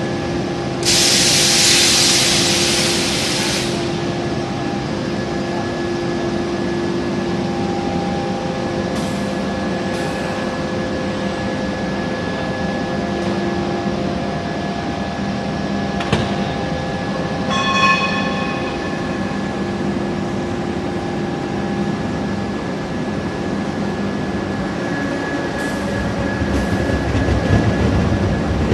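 Machinery of an automatic hot-forging line runs with a steady hum while a red-hot flange ring is rolled on a ring rolling machine. A loud hiss lasts about three seconds near the start. Past the middle comes a clank, then a short metallic ring, and a low rumble builds near the end.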